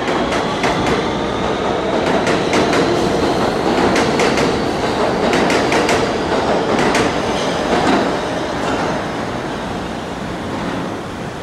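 R160 subway train with Siemens propulsion pulling out past the platform: a steady rumble of steel wheels on track, with clacks as the wheels cross rail joints and a faint whine above. The sound eases off in the last few seconds as the last car goes down the tunnel.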